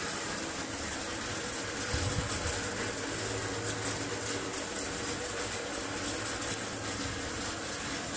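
Steady mechanical hum and hiss of background noise, with a deeper low hum from about two seconds in until near the end.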